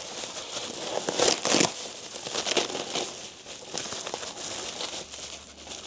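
Packaging bag crinkling and rustling as parts are taken out and handled, loudest about a second in.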